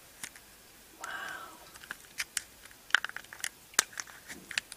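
Scattered sharp plastic clicks and crinkles as fingers pry open the clear plastic canopy of a small toy helicopter. A soft "wow" comes about a second in.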